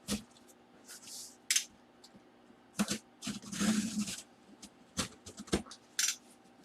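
Hands opening and handling a box and its packing: a string of short scrapes, rustles and clicks, with a longer rustle about three and a half seconds in.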